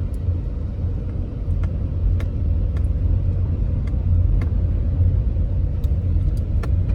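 Steady low rumble of road traffic on a nearby parkway, with a few faint ticks scattered through it.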